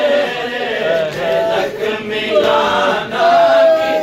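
Men chanting a noha, a Shia lament, in unison. A lead voice holds long, wavering notes over the voices of the group.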